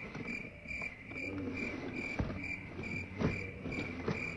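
Cricket chirping steadily, about three chirps a second, the stock 'crickets' sound effect. Beneath it, a dry cake-mix box is shaken, with a few soft knocks.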